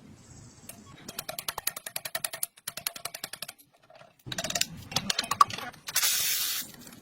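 Workshop tool noise: a run of rapid clicks, a pause, more clicking and scraping, then a short spray hiss near the end.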